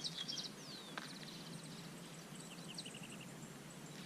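Small birds chirping and trilling: short high chirps, a falling whistle, then a fast trill of about a dozen notes, over a steady faint background hiss. A single sharp click about a second in.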